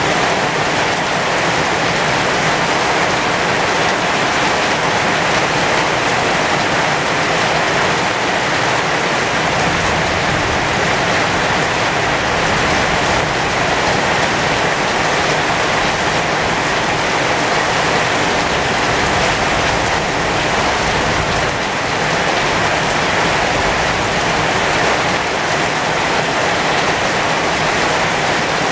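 Heavy rain pouring steadily onto the leaves of a pomegranate tree: a dense, even hiss of countless drops that holds the same level throughout.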